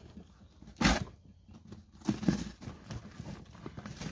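A cardboard shipping box being cut open with a utility knife: scraping and tearing of cardboard, with a few sharp knocks, the loudest about a second in and another about two seconds in.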